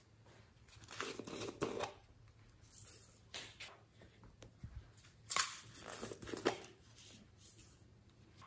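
Small plastic containers of slime add-ins being handled over the slime dish: a series of short, scratchy rustling and scraping noises, several in quick succession.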